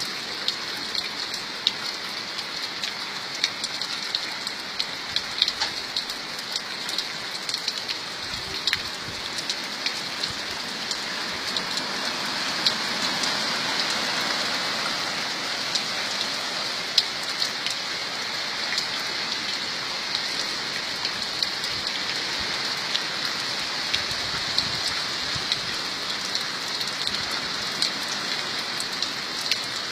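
Steady rain falling, a constant hiss dotted with many sharp ticks of individual drops striking a surface. It gets a little louder about halfway through.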